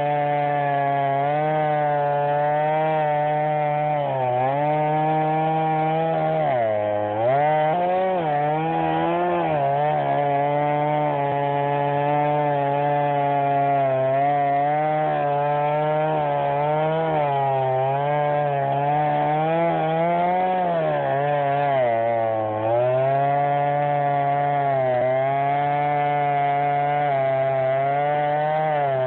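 Chainsaw engine running at high speed while cutting wood, its pitch sagging several times as the chain bogs down in the cut, most deeply about a quarter of the way in and again about three-quarters through, then climbing back.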